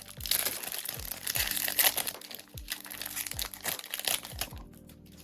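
A trading card pack's wrapper being torn open and crinkled, loudest in the first two seconds and dying away by the end, over background music with a steady beat.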